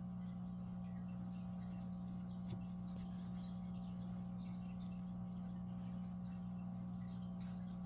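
Steady low electrical hum, with a few faint soft ticks from a crochet hook working yarn through a stitch.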